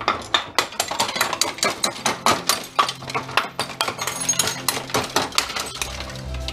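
Hammer blows coming rapidly, several a second, on hard plastic and metal parts of a rear-projection TV's optical unit inside a plastic trash can, smashing a piece that would not pry loose because of rubber melted onto it.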